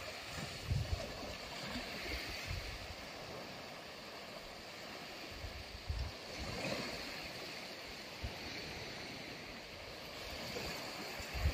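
Sea waves washing steadily on a beach, with gusts of wind buffeting the microphone now and then.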